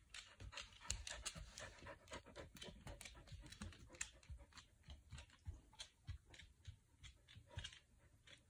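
A Samoyed's claws clicking and tapping on a hard floor as the dog walks and turns about, in quick irregular clicks, several a second.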